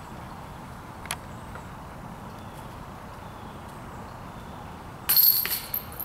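A disc striking the chains of a disc golf basket makes a short, loud metallic jingle about five seconds in. Before it there is quiet outdoor background and one faint click about a second in.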